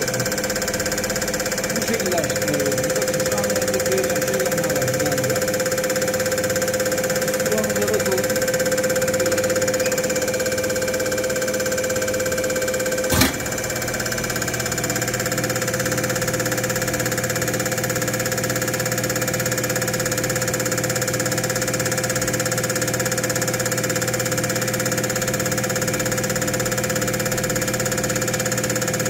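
Diesel injector test bench running with Bosch piezo injectors mounted: a steady machine hum with the injectors spraying into the collecting glasses. About halfway through there is a sharp click, and the running note changes to a lower, steadier hum with a faint regular pulsing.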